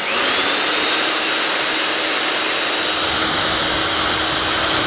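Titan corded SDS hammer drill's brushed motor running free with no load, in drill mode with no hammer action, on a test run after its faulty trigger switch was replaced. The motor speeds up again just after the start, holds a steady high whine, and begins to wind down as the trigger is released at the very end.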